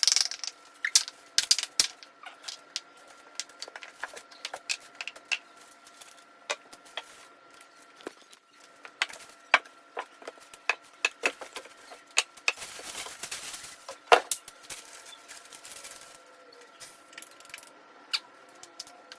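Scattered clicks, taps and knocks of cat-tree parts being handled and fitted together during assembly, with a brief stretch of rustling a little past the middle and a faint steady hum underneath.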